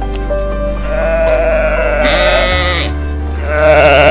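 Sheep bleating twice, each a quavering call: one about two seconds in and a louder one near the end. Both are heard over background music.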